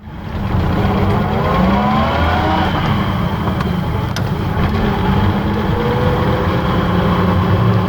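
1949 AC 2 Litre's straight-six engine running as the car drives, rising in pitch about one and a half seconds in, then pulling steadily.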